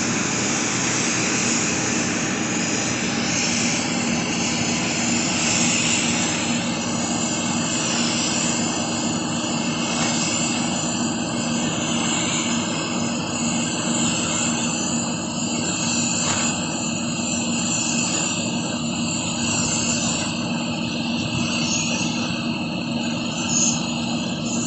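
Paint spray gun hissing steadily as it sprays, over a constant mechanical hum.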